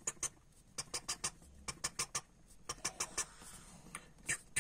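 Fine marker pen tapping and scratching on paper as small dots and strokes are drawn: a run of short, faint ticks, several a second, with a brief soft scratch a little past the middle.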